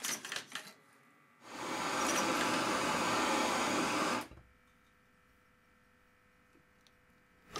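A makeshift gas burner's flame hissing steadily for about three seconds before cutting off sharply, after a few light clicks. Then near silence with a faint steady hum.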